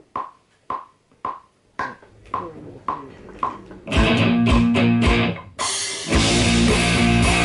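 Click track counting in, a steady tick about twice a second with every fourth tick higher. About four seconds in, a loud rock take comes in with drums and electric guitar, and it drops out briefly for about half a second before carrying on.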